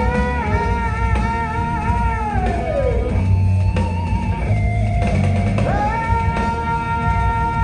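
Rock band playing live, loud: electric guitar and drum kit, with a held high note that slides down about three seconds in and climbs back up a couple of seconds later.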